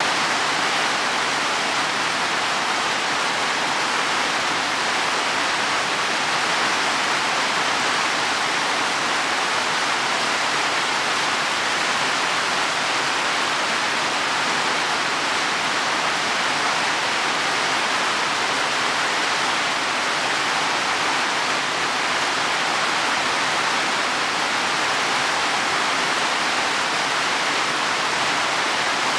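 Heavy rain falling on leaves and soil, a dense steady hiss with no individual drops standing out.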